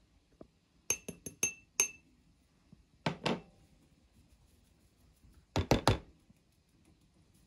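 Kitchenware being handled: five quick ringing clinks about a second in, then two dull knocks, and a quick run of three louder thuds later on.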